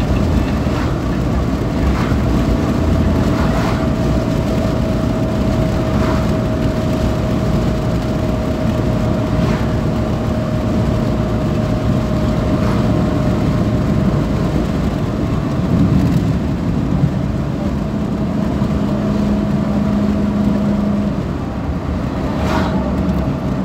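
Car heard from inside the cabin while driving on the highway: a steady low rumble of engine and tyre noise, with a faint steady whine above it and a few light knocks.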